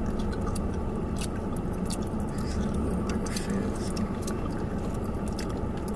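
Steady low hum of a car cabin, with scattered small clicks and rustles close to the microphone.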